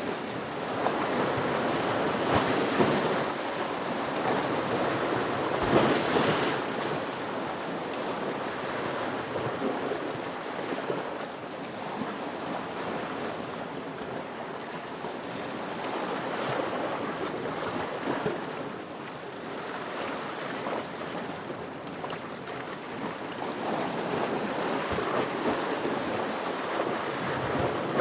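Ocean waves breaking and washing in, a continuous surf hiss that swells and eases every few seconds, with the loudest wave about six seconds in.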